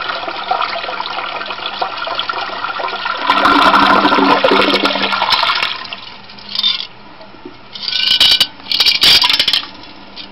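Toilet flushing: water rushing and swirling down the bowl, growing louder about three seconds in and dying away about six seconds in. After it come a few short, loud bursts of noise.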